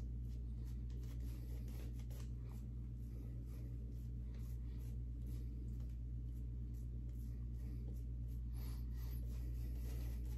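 Badger shaving brush swishing lather over the face and neck in quick, repeated scratchy strokes, over a steady low hum.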